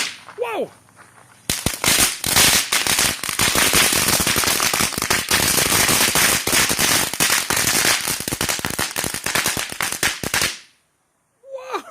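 Lil' Patriot Rattle Snakes novelty firework crackling: a loud, dense run of rapid pops and crackles that starts about a second and a half in, goes on for about nine seconds, and cuts off suddenly.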